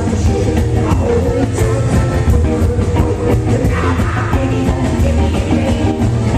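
Live rock and roll band playing at full volume, with a steady drum beat under piano and saxophone.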